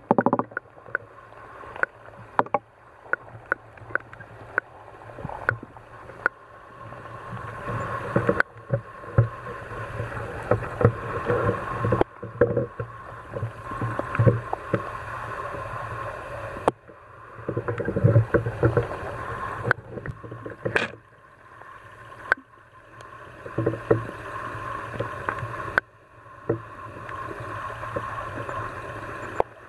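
Underwater sound from a camera submerged in a lake: muffled water noise with a steady low hum and many sharp clicks and knocks, breaking off abruptly several times.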